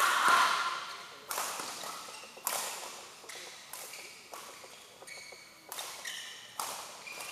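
Badminton rally: sharp racket hits on the shuttlecock about once a second, the first the loudest, each ringing in the hall.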